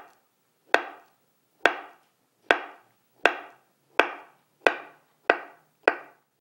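Kitchen knife slicing through a peeled avocado and knocking on a wooden cutting board: about nine sharp, evenly spaced strikes, a little over one a second, quickening slightly toward the end.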